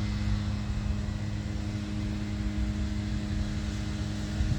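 A steady mechanical hum holding several constant tones over an unsteady low rumble, unchanged throughout.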